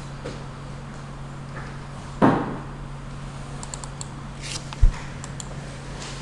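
A dull knock about two seconds in and a short low thump near five seconds, over a steady electrical hum, with a few faint clicks between them.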